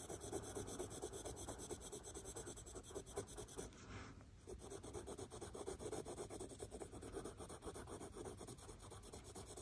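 Faint scratching of a Prismacolor Limepeel coloured pencil shading across textured cartridge paper in quick, short back-and-forth strokes, with a brief pause about four seconds in.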